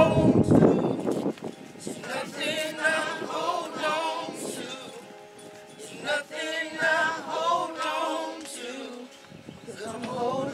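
Slow gospel worship singing, the voices wavering with vibrato on long held notes and dipping in a brief lull in the middle. A brief muffled thump comes right at the start.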